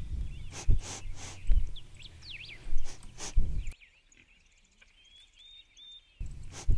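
Birds chirping in an outdoor countryside ambience, with several soft thumps in the first few seconds. About halfway through, the ambience drops almost to silence for a couple of seconds, leaving only faint chirps, and then comes back near the end.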